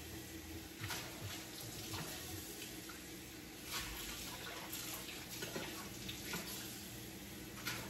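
Water running from a kitchen faucet into the sink, with scattered light clinks and knocks of dishes being handled in it.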